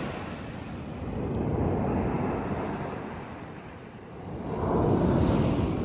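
Ocean surf breaking and washing on the shore, swelling and easing in waves with a strong surge about four and a half seconds in, with wind on the microphone.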